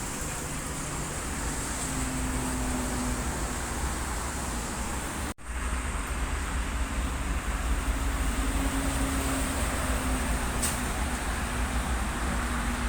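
Bus engine running with a steady low rumble amid traffic noise, cut off for an instant about five seconds in.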